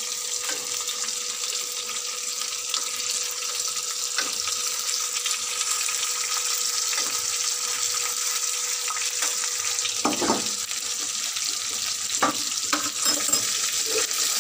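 Mango pieces and sugar sizzling in a hot steel kadai as a spoon stirs them: a steady hiss with a few metal scrapes of the spoon against the pan, the clearest about ten and twelve seconds in.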